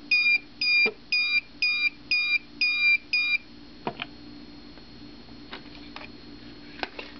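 The low temperature alarm of a homemade wood stove temperature monitor beeps rapidly, about three short electronic beeps a second, signalling that the stove probe reads below 200 degrees. The beeping cuts off about three seconds in as the alarm is silenced at its two buttons, leaving a faint hum and a couple of light clicks.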